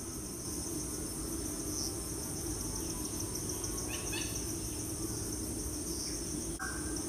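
Steady high-pitched insect chirping over a steady low hum, with a faint scrape of a plastic spatula in a pot of heating milk about four seconds in and a single click near the end.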